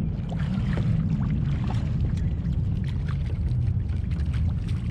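Water splashing and dripping as a coho salmon is scooped into a landing net at the side of a kayak, mostly in the first couple of seconds, with scattered smaller splashes after. A steady low rumble of wind on the microphone runs under it.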